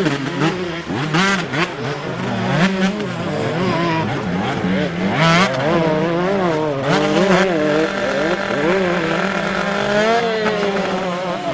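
Dirt bike engines revving hard and unevenly on a muddy enduro climb. The pitch keeps rising and falling with the throttle as the rear wheels spin for grip.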